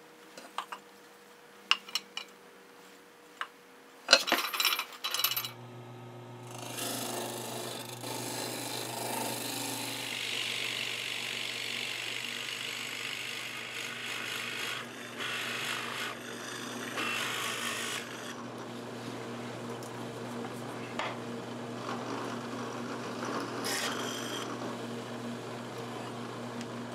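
A few knocks and a short clatter of handling, then about five seconds in a Craftsman benchtop drill press motor starts and runs with a steady hum. Its bit bores into a hardwood board, a rough cutting noise that swells and eases as the bit is fed in and lifted.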